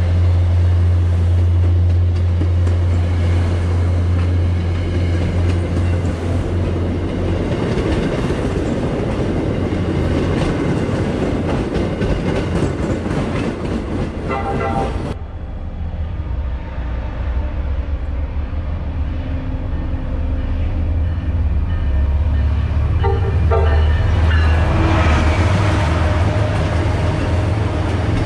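MBTA commuter rail trains passing at speed: a continuous rushing rumble with a strong low hum, and short blasts of a train horn just before the middle and again a few seconds before the end, as a bilevel train rushes past.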